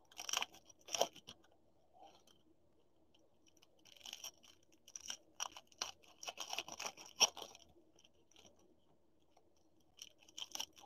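Faint crinkling and rubbing of a clear plastic sleeve as a trading card is slid into it and handled: a couple of short rustles about a second in, then a denser run of rustles from about four to seven and a half seconds.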